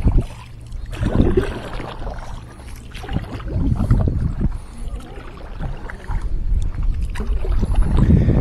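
Kayak paddle strokes dipping and splashing in the water, roughly once a second, over a low rumble of wind on the microphone.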